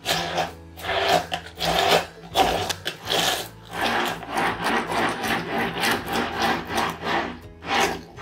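Hand-held immersion blender running in a plastic beaker, its blade churning cooked vegetables into a purée in repeated surges, about one a second at first and quicker in the middle.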